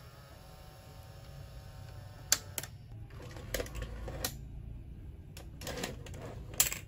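Hitachi VT-88 VCR's front-loading cassette mechanism ejecting a tape, its cracked gear glued back: a faint motor whir, then a series of mechanical clicks and clunks as the carriage brings the cassette out.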